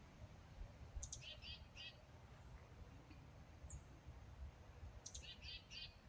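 A songbird sings two short phrases about four seconds apart, each a quick high downward note followed by a few rapid repeated notes. A steady high-pitched insect drone and a faint low rumble run underneath.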